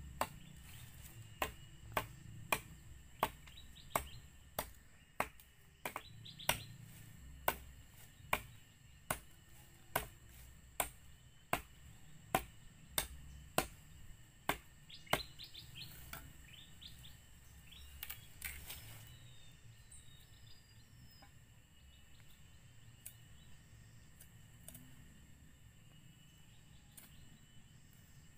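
Machete chopping at bamboo poles: sharp, evenly spaced strikes, about one and a half a second, for roughly the first half, then a couple more and it stops. Birds chirp faintly, with a steady high insect drone.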